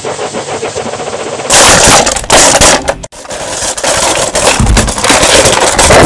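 Steam locomotive sound effect: fast, even chuffing, then loud blasts of hissing steam from about a second and a half in, with a brief break near the three-second mark.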